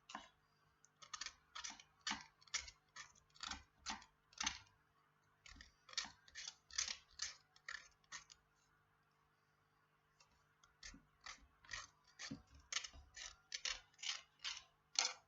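Nail file scraping in short downward strokes along a fingernail's edge, about two strokes a second, filing off the excess of a nail wrap. The strokes stop for about two seconds midway, then start again.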